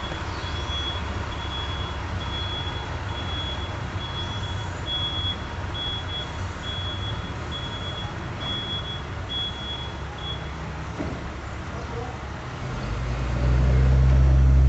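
Steady workshop noise with a short high electronic beep repeating about once a second, which stops about ten seconds in. Near the end a loud low hum of a motor or machine starts up and swells.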